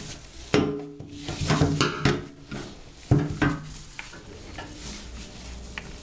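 Clicks and knocks of plastic and metal parts being handled as a power supply is fitted into the opened POS terminal's metal chassis: a cluster of sharp knocks in the first three and a half seconds, then quieter handling noise.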